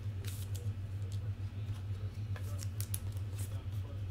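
Steady low hum with scattered light clicks and rustles of trading cards and foil pack wrappers being handled.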